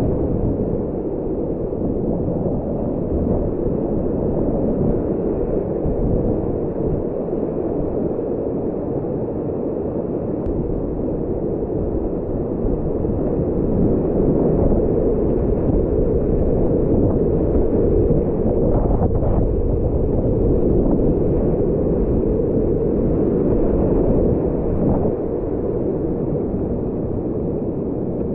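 Steady, muffled roar of whitewater rapids rushing around a kayak as it runs them.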